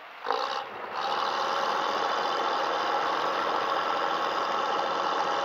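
The ferry's engine coming up to a loud, steady run under power: a short burst, then a sustained even drone for about four seconds, dropping away sharply near the end.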